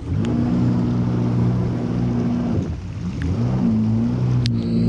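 Yamaha FX HO jet ski's four-stroke engine running steadily at low speed. Its pitch dips and climbs back about three seconds in, and there is a single sharp click near the end.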